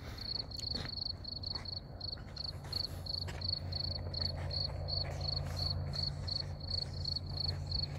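A cricket chirping steadily, a high-pitched chirp repeating about four times a second, over a steady low hum.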